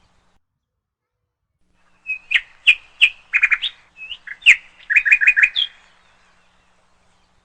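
A small songbird singing one rapid phrase of chirps and short trills, beginning about two seconds in and lasting about four seconds, ending on a higher upward note.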